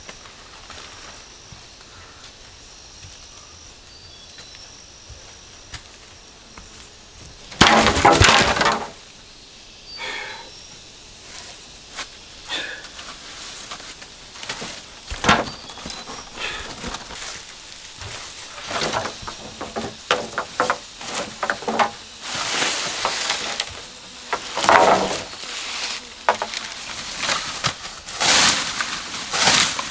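Dry dead bamboo and leaf litter cracking, snapping and crunching as the stalks are broken and pulled about. A loud crash comes about a quarter of the way in, then many sharp cracks and crackling runs that grow denser toward the end. Before the crash there is only a faint forest background with a few high thin calls.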